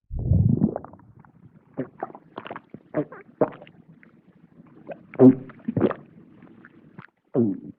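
A person's close-miked mouth sounds acting out swallowing: a loud low gulp right at the start, then a run of short wet smacks, clicks and gulps, the loudest about five seconds in.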